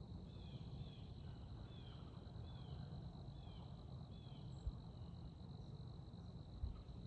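Steady high-pitched insect trill of crickets, with a string of short downward-sliding chirps about twice a second through the first four seconds. Two soft thumps come near the end.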